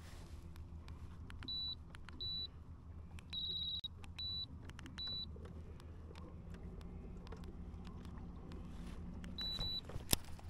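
Electronic beeps from the boat's electronics: about six short beeps at one high pitch, spread irregularly, one near the middle longer and warbling. A steady low hum runs underneath, and a single sharp click comes near the end.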